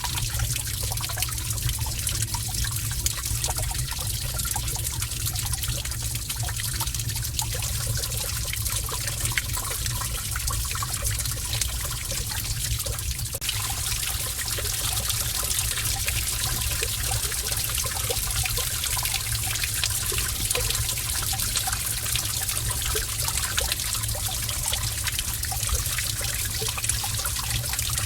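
Gentle running water trickling steadily in a cave, a continuous splashing hiss under a low rumble; the hiss grows a little brighter about halfway through.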